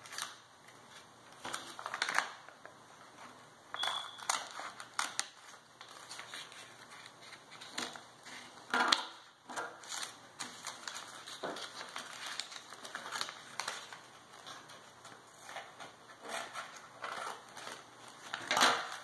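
Small pink-handled scissors cutting through folded paper, with irregular short snips and paper rustling.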